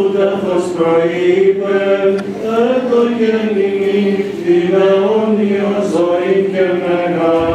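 Greek Orthodox chanters singing a Byzantine hymn, a steady low held note sounding under a slowly moving melody line.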